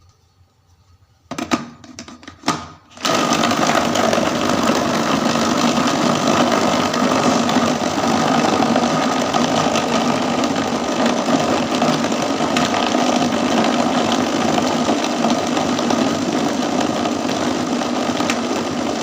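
Electric blender running steadily, grinding shallots and garlic with a little water into a paste, and cutting off near the end. A few short clicks and knocks of handling the blender come just before the motor starts.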